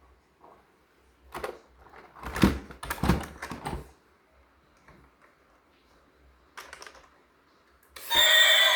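Plastic clicking and rattling in quick bunches as a toy and its packaging are handled, loudest about two to three seconds in. Near the end a loud electronic tune with a siren-like tone starts abruptly.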